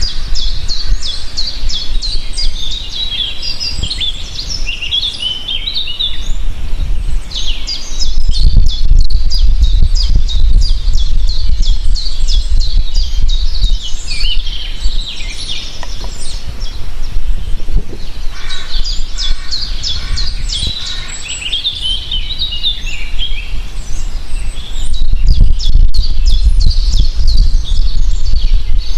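Several songbirds chirping and trilling together in a dense, overlapping chorus of quick high notes. A low rumble runs beneath them, growing louder about eight seconds in and again near the end.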